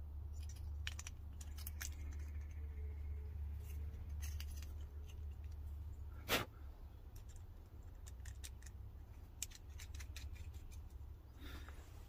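Small hard-plastic clicks and snaps from handling the Redarc brake controller button and its wiring plug and fitting them into the Toyota Tacoma's dash switch panel. One sharp, loud snap comes about six seconds in, over a steady low hum.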